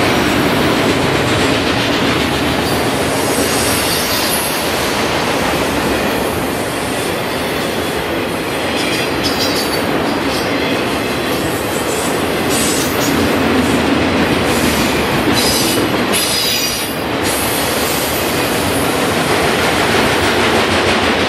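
Freight train's autorack cars rolling past close by: a steady rumble and clatter of steel wheels on the rails, with bursts of high-pitched wheel squeal in the middle stretch.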